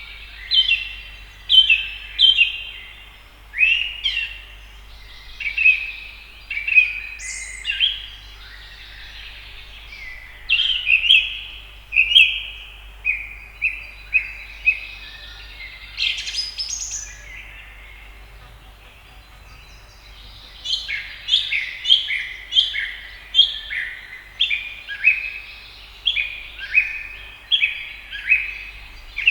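House sparrows chirping: a long run of short, loud chirps, one or two a second, with a brief lull about two-thirds of the way through.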